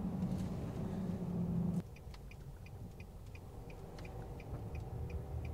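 Inside a Nissan Navara NP300's cab: a steady low drone of the vehicle underway that drops away suddenly about two seconds in. It is followed by the regular ticking of the turn indicator, about three ticks a second.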